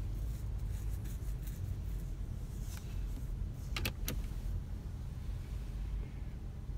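Steady low hum inside a car cabin, with two light clicks close together about four seconds in as a hand works the overhead console controls.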